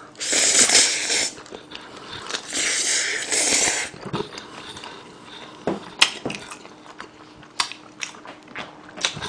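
A person slurping black-bean-sauce noodles in two long, hissing draws, then chewing with wet mouth smacks and clicks.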